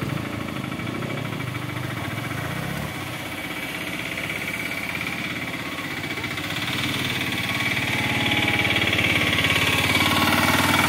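Motorcycle and scooter engines idling, getting louder from about halfway through as the bikes move off.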